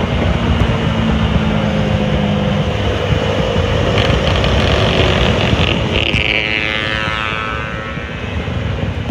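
Bajaj Dominar 400's single-cylinder engine running at highway speed under heavy wind rush, easing off and then pulling again. A high whine falls in pitch about six to eight seconds in.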